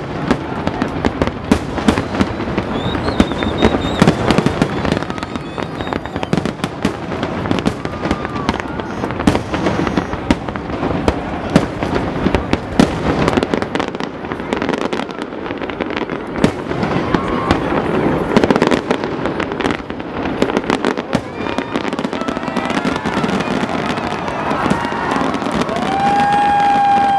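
A fireworks display going off: a dense, unbroken stream of bangs and crackles.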